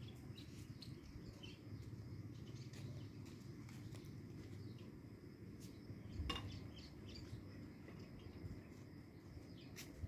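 Faint outdoor ambience: a steady low rumble with scattered faint bird chirps and clicks, and a single brief knock about six seconds in.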